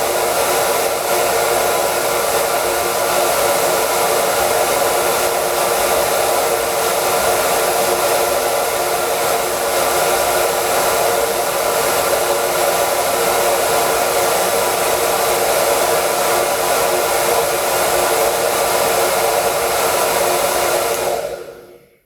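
Hair dryer running steadily: a loud airy rush with a steady motor hum underneath. Near the end it winds down and stops.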